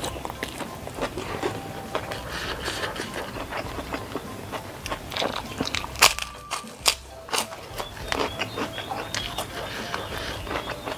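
Close-miked eating sounds: steady chewing and small wet mouth clicks from a mouthful of rice and sausage eaten by hand, with one loud crunchy bite into a white cracker about six seconds in.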